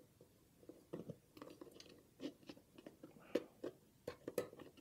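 Faint, scattered clicks and light scrapes of 3D-printed plastic model parts being handled as a small door is fitted onto its hinge pin in a corner post, with a couple of sharper clicks near the end.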